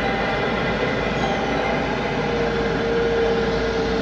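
The twin turbofan engines of a Boeing 777-200ER running at taxi power as the airliner turns: a steady jet rumble with a held whine.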